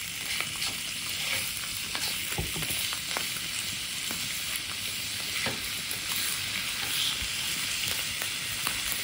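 Two hand-chopped beef patties searing in olive oil in a nonstick frying pan over high heat: a steady sizzle with scattered small crackles and pops.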